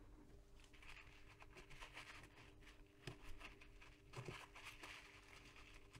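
Faint rustling and light scratchy ticking of fingertips handling and turning a small circuit board, with a couple of slightly sharper ticks in the middle.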